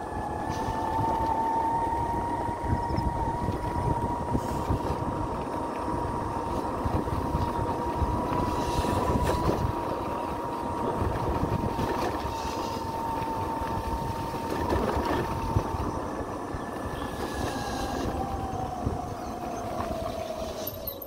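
A vehicle engine running while driving, holding a steady whining note over a rough low rumble. The note rises slightly in the first couple of seconds as the vehicle speeds up and drops away over the last few seconds as it slows.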